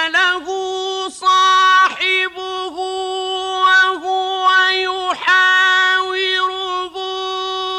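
A male reciter's voice in melodic Quran recitation (tajweed), drawing out long, high, steady notes with short ornamental turns between them.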